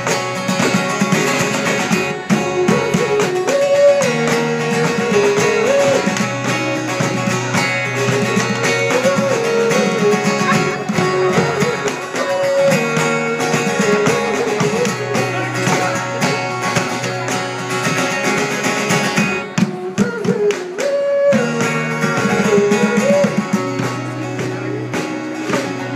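Live acoustic band music led by a strummed acoustic guitar, with a wavering melody line over the chords and a short break about twenty seconds in.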